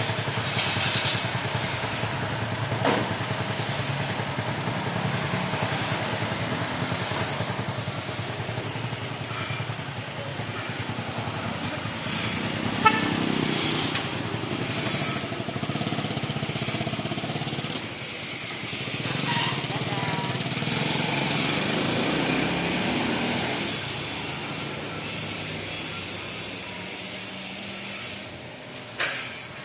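Engine of a Viar three-wheeled motorcycle running steadily. It rises in level twice, about twelve seconds in and again about twenty seconds in, and dies down near the end.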